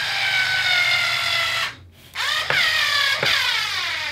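Small electric screwdriver driving a short screw into a wooden canvas stretcher bar to fix a D-ring: the motor whines with a slowly sagging pitch, stops a little before halfway, then gives two short bursts, each falling in pitch, as the screw is run in.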